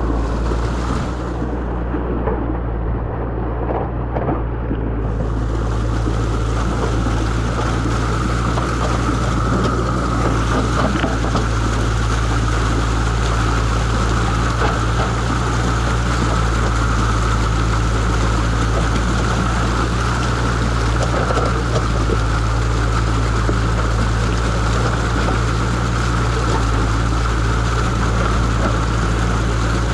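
Muddy water rushing and churning through a hand-made breach in a beaver dam as the pond drains. The rush is steady and loud, growing fuller and hissier about five seconds in.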